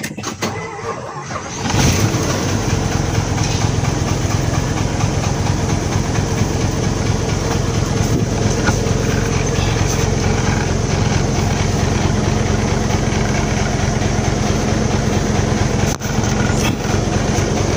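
Isuzu 10PD1 V10 diesel engine of a dump truck turning over on the starter and catching about two seconds in. It then runs steadily at an even speed.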